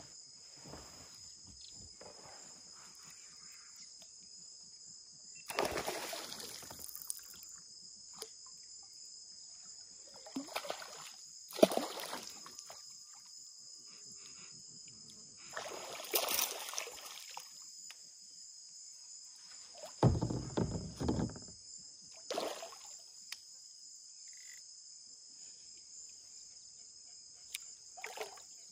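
Insects chirring in a steady high drone, with irregular splashes and knocks from a kayak on the water, about half a dozen in all; the heaviest is a low thump about two-thirds of the way through.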